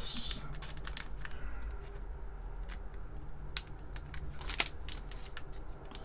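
Irregular clicks and crackles of a metallic static-shielding bag being handled and pulled open, the loudest cluster a little past the middle, over a low steady hum.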